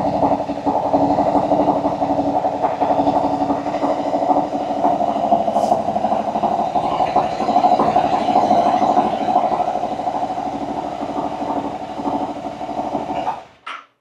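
A Royal Enfield Continental GT 650's 648 cc parallel-twin engine idles steadily in neutral. It has just started on a newly fitted lithium battery after a no-start problem. It is switched off and stops abruptly about a second before the end.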